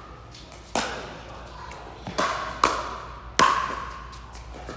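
A pickleball rally: the hollow plastic ball popping off paddles in four sharp hits over about three seconds, the last the loudest. Each pop rings briefly and echoes in a large indoor court hall.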